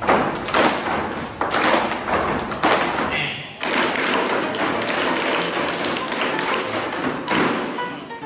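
A group of tap dancers' shoes striking plywood tap boards together: a dense clatter of taps and stamps, with a brief lull about three and a half seconds in.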